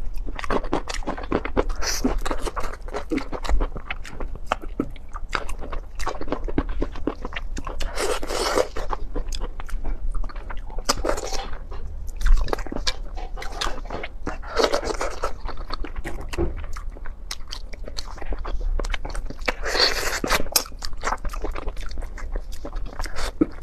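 Close-miked eating of braised pork tail: wet chewing, biting and gnawing of meat and gristle off the bone. It is a dense run of small clicks and crunches, with several longer, noisier stretches.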